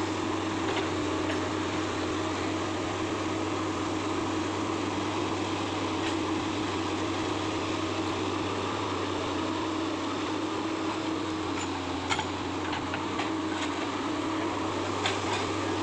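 Excavator's diesel engine running steadily, with a few light clicks and knocks about twelve and fifteen seconds in.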